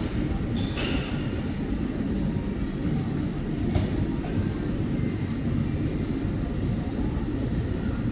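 A steady low rumble of background noise, with a short burst of hiss about a second in and a fainter one near four seconds.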